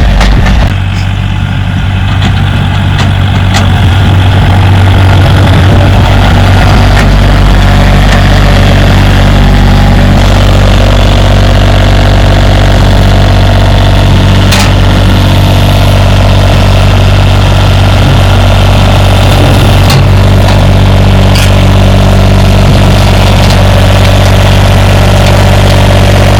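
John Deere 3025E compact tractor's three-cylinder diesel engine running steadily, with a few light knocks.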